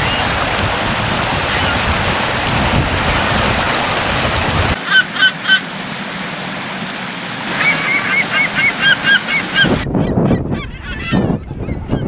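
Water rushing and splashing over rocks, then gulls calling: three short calls, and after a pause a quick run of about eight. Near the end the water gives way to a gusty, rumbling noise.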